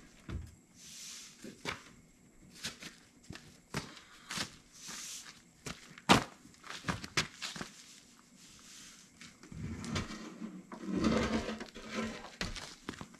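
Heavy sheet-steel panel being manhandled off a rolling cart: scattered knocks, scrapes and footsteps, with one sharp metal clank about six seconds in and a longer stretch of scraping and shuffling near the end.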